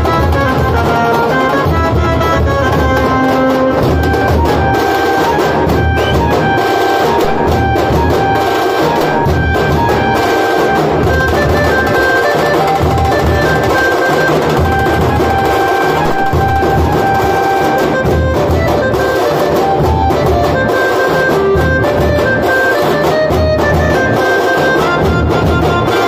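Street band music: large bass drums beaten with sticks in a steady driving rhythm, with a melody line played over them.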